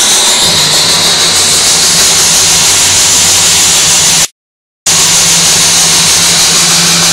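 Homemade speaker towers playing music at very high volume, so loud that the recording overloads into a distorted, noise-like roar over a steady bass note. The sound cuts out completely for about half a second a little past the middle.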